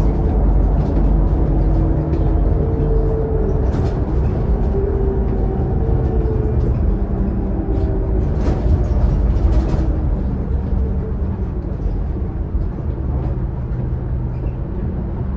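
Interior running noise of a Scania K280UD double-decker bus on the move: steady diesel engine and driveline rumble with a few whining tones. It eases off in the last few seconds as the bus slows.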